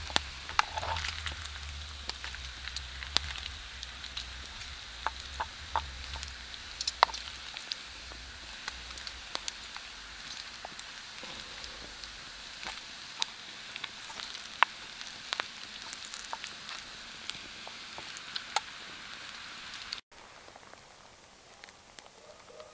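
Bacon sizzling and spitting in a stainless steel frying pan over campfire coals: a steady frying hiss full of sharp pops and crackles. About twenty seconds in, it drops abruptly to a much fainter background.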